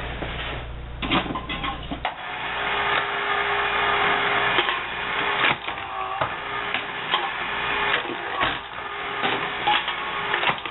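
Motorized aluminum can crusher with a chain drive running, its ram cycling and crushing cans. Sharp clanks and crunches come every few seconds over a steady machine hum that grows louder about two seconds in.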